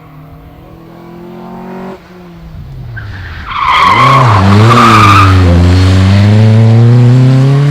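Rally car coming up on the stage, its engine note rising and falling with throttle and gear changes. About halfway through it gets much louder as the car arrives, with high-pitched tyre squeal while it corners.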